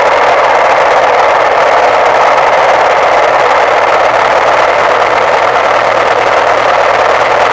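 Steady, loud rush of wind and road noise from a motorcycle riding at road speed, with the engine running underneath.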